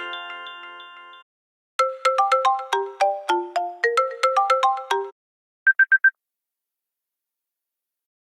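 iPhone iOS 15 ringtones played one after another. The last notes of one melody fade out, and about two seconds in a quick run of short, bright notes plays for about three seconds. Near the middle come four short beeps at a single pitch.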